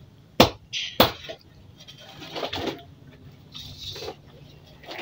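Sharp, loud knocks in a steady rhythm, about one and a half a second, like hammering or chopping; the last two come in the first second and then the knocking stops. Quieter scattered sounds follow.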